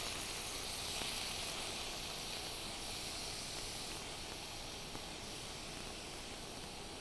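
Hot oil sizzling faintly and steadily in a stainless steel pan as marinated tofu blocks are set in to fry, easing off slowly.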